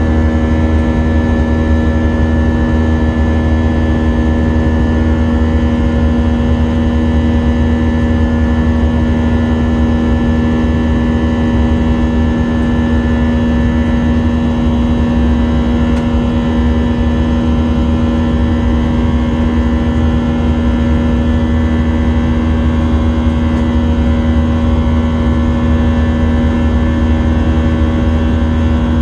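Airbus A319 jet engines running steadily, heard from inside the cabin: a heavy low rumble with several steady tones that do not change.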